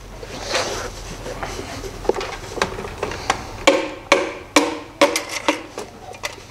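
Pistons being tapped down through a piston-ring compressor band into the cylinder bores of a 1.6-litre AKL four-cylinder block with the wooden end of a hammer. From about two seconds in come a series of sharp knocks, each with a short ring, and they come quicker after about four seconds.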